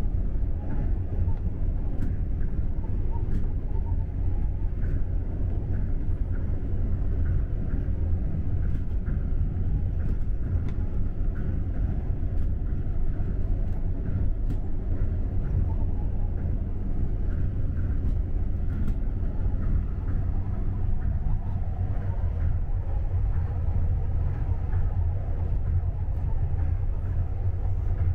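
Steady low rumble of a Tokyo Monorail train running at speed on its rubber tyres along the concrete guideway, heard from inside the passenger car.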